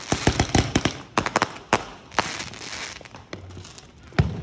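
Fireworks going off: a rapid run of sharp cracks and pops, thickest in the first two seconds and thinning out, then a single deep boom near the end.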